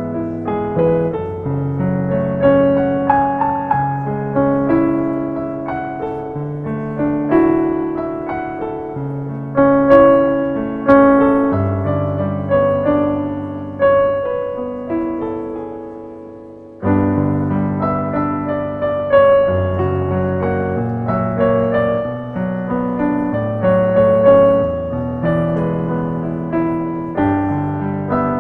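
Piano playing a slow instrumental piece, single melody notes over lower chords, each note striking and fading away. About 17 seconds in the sound dies down, then a new phrase starts abruptly.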